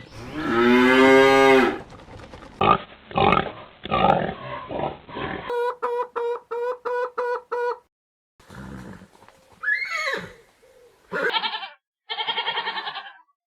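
A string of different farm-animal calls, cut abruptly one after another. It opens with a long drawn-out call. Then come rough grunting bursts, a quick run of about five pulsed calls a second, a call that rises and falls in pitch, and two short trembling calls near the end.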